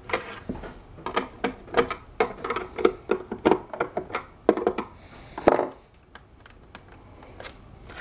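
Hands working a hoverboard's plastic shell: a quick run of small clicks and knocks, the last and loudest about five and a half seconds in, then quieter handling.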